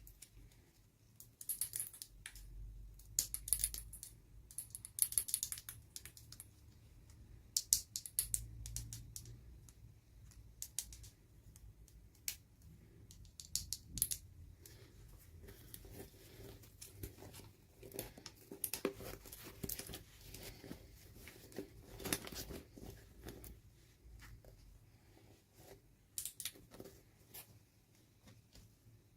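Toy packaging being opened by hand: irregular bursts of crinkling and tearing mixed with small clicks and taps.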